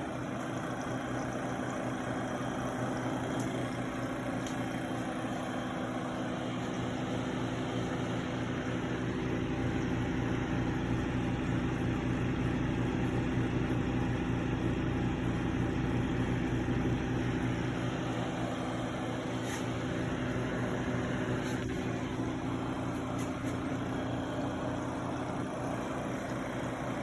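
Rebuilt 1930s Westinghouse refrigerator compressor running steadily on test with a low, even hum. It is charged with keyboard-duster refrigerant and running well, a sign the rebuild is healthy.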